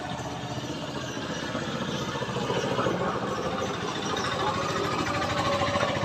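A small engine running steadily with a rapid, even pulse, growing louder about two seconds in.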